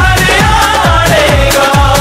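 Background music with a steady beat, about two strokes a second, under a wavering melody.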